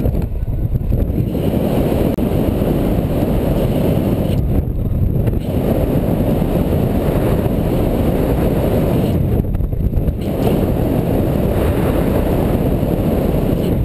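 Airflow buffeting the microphone of a paraglider pilot's camera during a winch-towed climb: a loud, steady, low rumble of wind noise.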